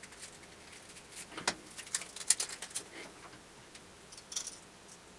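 Quiet, scattered metallic clicks and taps from a Parker Variant safety razor's parts being handled while a double-edge blade is loaded, most of them in the middle with one more near the end.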